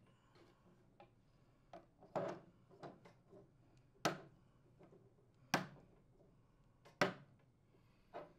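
Plastic vertical louver retaining pins snapping into the slots of a new air-conditioner horizontal louver: a string of sharp clicks, the loudest three about a second and a half apart.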